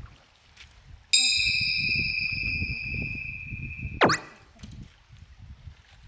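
A chime-like ringing tone starts suddenly, made of several high pitches at once, and fades over about three seconds. It is cut off near the end by a quick falling swoosh, in the manner of an added comedic sound effect. A low rumble of wind runs underneath.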